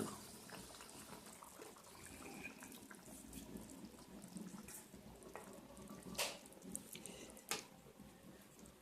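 Chicken curry simmering faintly in the pan, with small bubbling pops and a few sharper clicks, three of them standing out in the second half.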